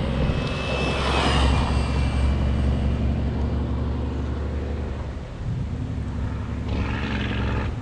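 Traxxas X01 RC car's brushless electric motor whining at high speed, its pitch gliding as it runs across the lot, over a steady low rumble. The whine swells again near the end.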